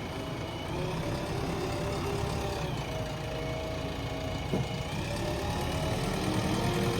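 A JCB 3DX backhoe loader's diesel engine running steadily, with its pitch wavering as the machine works. There is a single short knock about four and a half seconds in.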